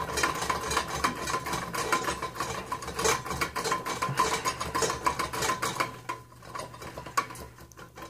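Fast metallic clicking and rattling at the hanger of a Fanimation Odyn DC-motor ceiling fan, under a steady low hum. The hanger grommet is shifting back and forth on a J hook because the fan swivels instead of sitting in its ball-socket bracket. The rattling thins out about six seconds in.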